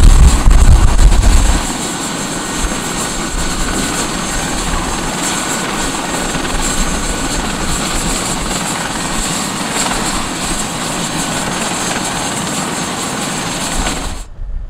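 Airbus H145 helicopter running on the ground, its twin turbines and rotor making a steady noise with a high steady whine on top. A heavy low rumble comes in for the first second or two. The sound cuts off suddenly near the end.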